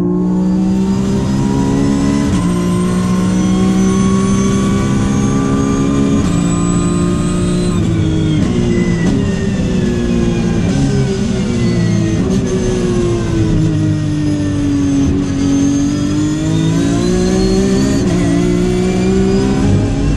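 Porsche 911 GT3 Cup race car's naturally aspirated flat-six engine, heard from inside the cockpit on a fast lap. The pitch climbs steadily under full throttle, drops sharply with downshifts about eight seconds in, falls slowly through the next section, then climbs again near the end.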